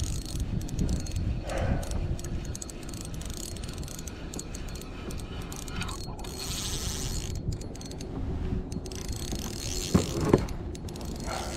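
Akuma RCX 3000 spinning reel being wound under load while a hooked fish is played on a bent rod: a mechanical whirring and clicking from the reel, with two sharp knocks about ten seconds in.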